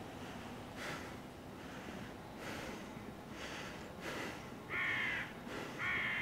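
Crows cawing: a string of harsh caws, faint at first, with two louder caws near the end.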